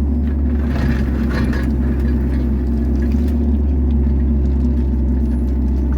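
Kubota KX161-3 mini excavator's diesel engine running steadily while it digs, with a short higher clatter about a second in.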